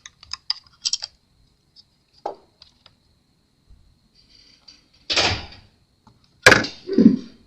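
Small clicks and taps of laptop parts being handled during disassembly, with a short rustle about five seconds in and a sharp knock at about six and a half seconds.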